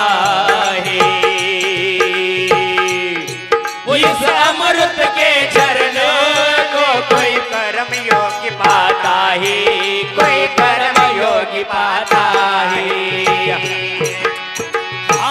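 Devotional bhajan music between sung verses: a dholak and other hand drums play a steady rhythm under a wavering melody line over a held drone.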